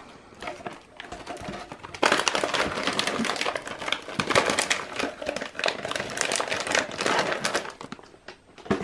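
Plastic snack packaging crinkling and rustling as it is handled, faint at first and then loud and dense for several seconds before dying away near the end.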